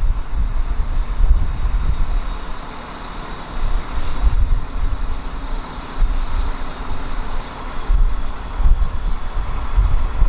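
Sailboat's inboard engine running steadily under way, with wind buffeting the microphone in uneven low gusts.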